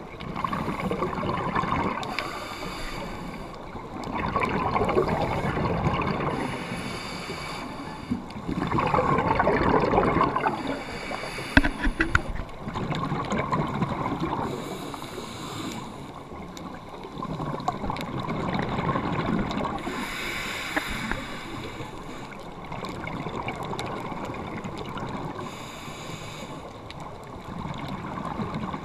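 Scuba breathing through a regulator underwater: a short hiss on each inhale, then a long rush of exhaled bubbles, repeating about every four to five seconds. A few sharp clicks come about twelve seconds in.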